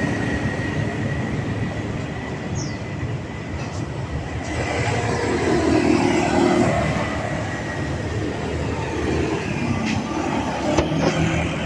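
Street traffic in front of a market: the steady rumble of passing vehicle engines, with one vehicle passing loudest about five to seven seconds in. A short sharp knock comes near the end.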